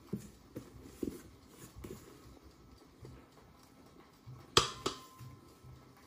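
A spatula knocking and scraping softly against a stainless-steel mixing bowl while thick sponge batter is poured out. About four and a half seconds in comes one sharp tap with a short ring, then a smaller one.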